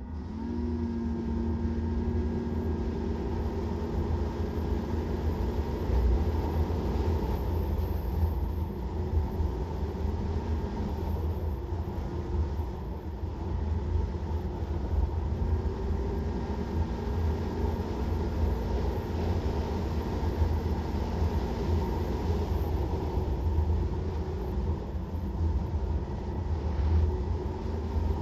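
Ski-Doo MXZ 800 two-stroke snowmobile running at speed. The engine drone rises right at the start, then holds steady under a heavy low rumble, easing off and coming back a couple of times.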